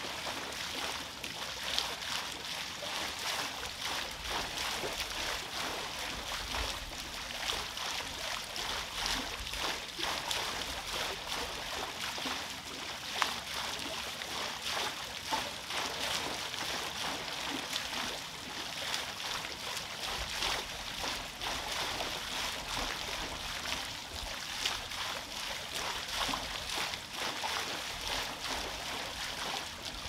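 Water pouring and splashing off a turning wooden waterwheel into a pond, a steady rushing with many small splashes and drips.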